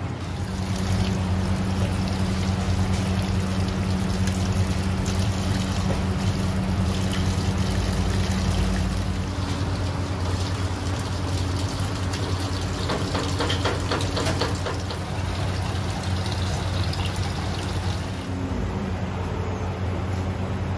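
Tap water running and splashing into a stainless steel sink as fish are rinsed by hand, with a steady low hum underneath. A flurry of sharper splashes and knocks comes a little past the middle.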